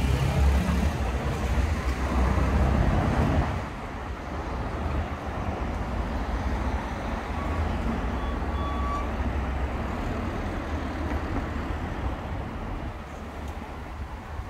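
Road traffic: a vehicle passes close by with a deep rumble that drops away about three and a half seconds in, leaving a steady background hum of traffic.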